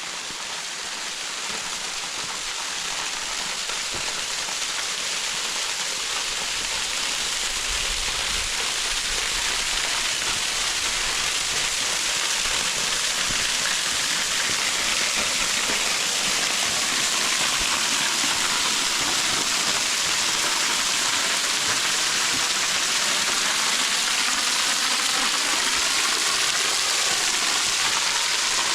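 Small waterfalls splashing and rushing: a steady noise of falling water that grows louder over the first half, then holds.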